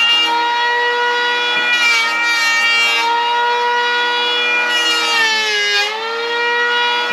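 Electric hand planer running with a steady high whine while shaving a wooden board. The pitch sags and a rough hiss joins in as the blades bite on each pass, about two seconds in and again around five to six seconds.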